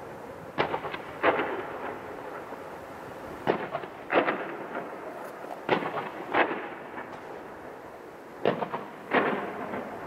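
Fireworks bursting: sharp booms in pairs, four pairs about two seconds apart, each boom trailing off in an echoing tail.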